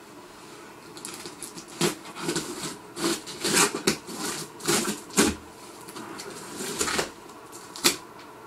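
Cardboard shipping box being opened by hand: the flaps scraping and rustling in irregular bursts, with a few sharp cracks of the cardboard.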